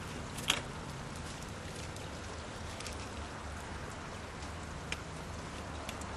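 Sharp plastic clicks and taps as PVC irrigation pipe fittings are handled and fitted together, the loudest about half a second in and another near five seconds, over a steady background hiss.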